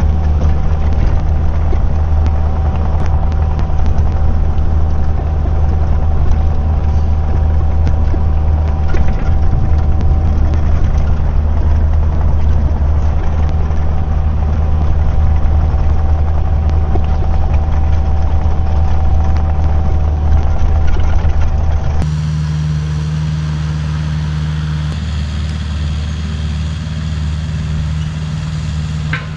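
Kubota diesel engine of a compact machine running steadily under work, with a steady whine above the drone. Near the end the engine sound changes abruptly to a different, slightly quieter running note.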